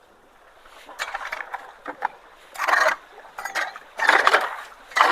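Wet leaf litter and sticks rustling and scraping in four short noisy strokes about a second apart, the later ones louder.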